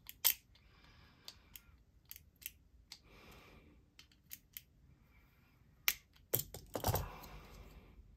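Sharp metal-on-metal clicks and ticks of locking pliers gripping and turning the pocket-clip hardware on a folding knife. Near the end comes a louder cluster of clicks with a low knock.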